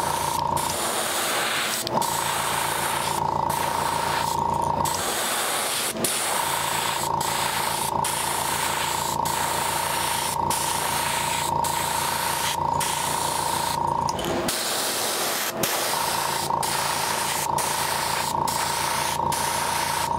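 Airbrush spraying paint in a steady hiss, broken by many brief dips as the trigger is eased. Under it, the whine and hum of a small air compressor that cuts out three times for a second or two.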